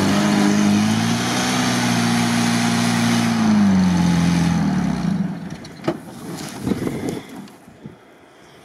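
Canvas-topped UAZ's engine revving hard under full throttle as its wheels spin and spray dirt on a steep slope. About five seconds in the revs fall and the engine sound drops away, leaving a few clunks.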